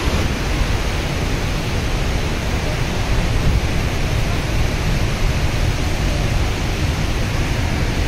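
Steady, loud rush of a fast-flowing river's rapids and the waterfall above them, water churning over rocks.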